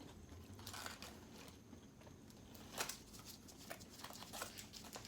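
Close-up eating sounds: irregular wet chewing and lip-smacking clicks, one sharper smack nearly three seconds in.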